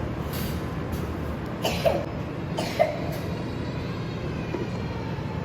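Two short coughs about a second apart, over a steady low vehicle rumble.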